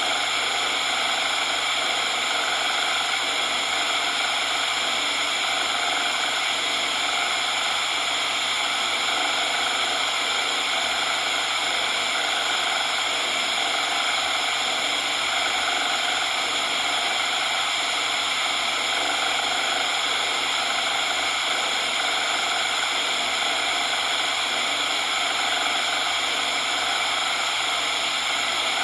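Synthetic coloured noise: a steady, unchanging hiss, strongest in the upper-middle range and thin in the bass.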